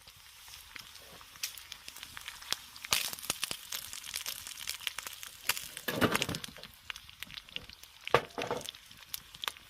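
Wood campfire crackling, with irregular sharp pops and snaps and a few louder pops.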